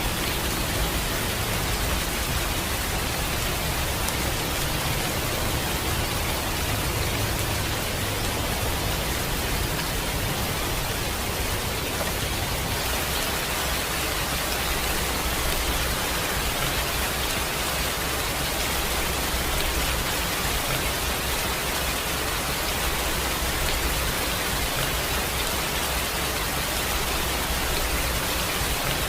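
Steady rain falling, an even unbroken hiss with no single drops or claps standing out.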